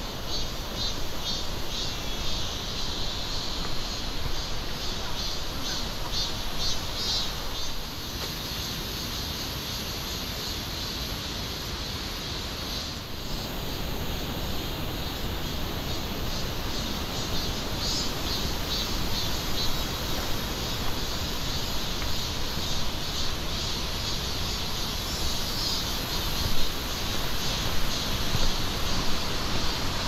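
Insects calling in the summer forest, a rapid pulsing chirp that comes and goes, over a steady low rush of noise. A few louder knocks near the end.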